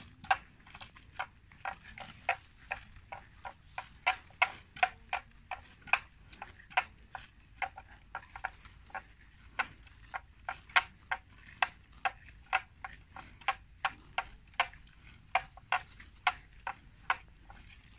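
Water buffalo grazing, tearing and cropping grass: an irregular run of short, sharp snapping crunches, about two or three a second.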